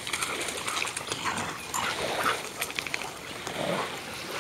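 A dog making a few short vocal sounds, with scattered splashing and the patter of paws in shallow water and wet mud at the water's edge.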